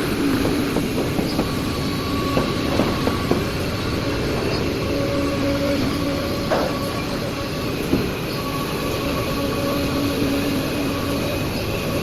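Industrial CNC wood router running in a workshop: steady machine noise with a hum that comes and goes every second or two, and a few sharp clicks and knocks.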